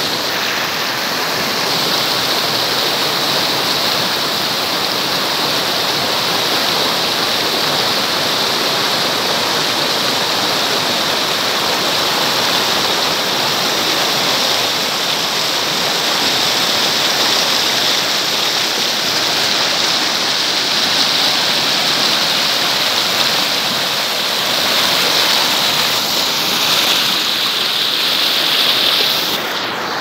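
Shallow, rocky river rushing and splashing over stones and through small rapids: a steady, even rush of running water.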